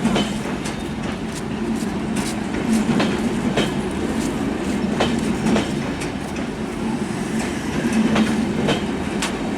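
Passenger train rolling past at speed, its wheels clacking over rail joints in an irregular rhythm above a steady rumble.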